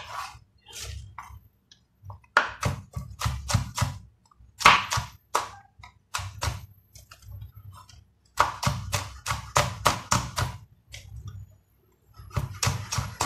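Chef's knife slicing green chillies on a wooden chopping board: runs of quick knife strokes knocking on the board, about four a second, with short pauses between the runs.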